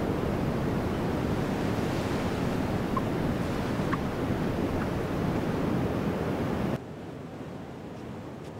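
Ocean surf and wind buffeting the microphone: a steady rushing noise that drops suddenly to a quieter wash of surf about seven seconds in.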